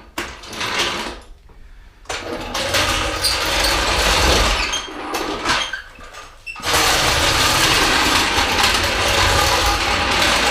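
Loud mechanical rattling and clattering in bursts: a short burst at the start, a longer one from about two to five seconds in, then steady from about seven seconds on.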